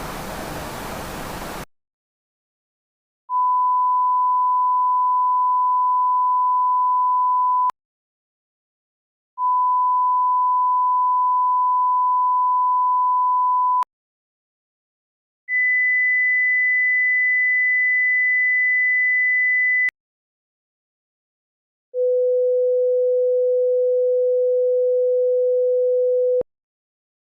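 TV no-signal sound effect: a burst of static hiss cuts off, then a steady pure test tone sounds four times for about four seconds each, with short silences between. The first two are at the same pitch, the third is higher and the fourth is lower.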